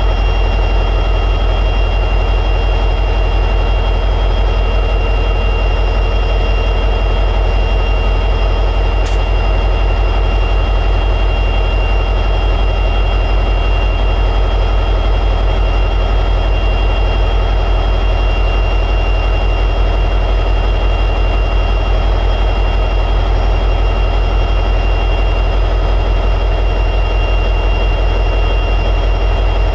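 EMD 710G3B diesel prime mover of an SD60E locomotive running steadily at high idle: a loud, even low rumble with a steady high-pitched whine over it. A single faint tick sounds about nine seconds in.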